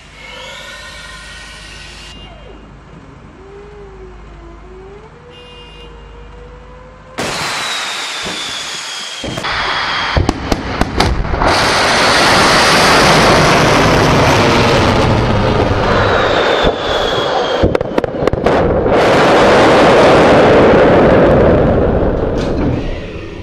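Solid-fuel rocket motor of a Topol-M intercontinental ballistic missile at launch: a sudden loud rushing roar starts about seven seconds in, grows louder with crackling, and fades away near the end. Before it comes a quieter, wavering tone.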